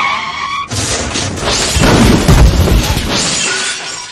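Sound effect of a vehicle skidding under hard braking, the tyre squeal breaking off under a second in, then a long crash with a deep rumble, loudest about halfway through and easing off near the end.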